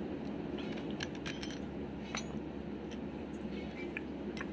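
Light metallic clinks and ticks of steel gearbox parts and circlip pliers being handled as a gearbox main shaft is stripped, scattered, with a cluster about a second in and a few more near the end. A steady low hum runs underneath.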